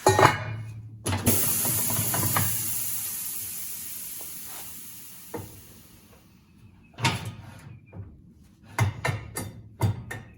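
Mayflower 560 tire changer's air-operated mechanism working: a clunk, then compressed air hissing out and fading away over about five seconds. A few metal clanks follow near the end.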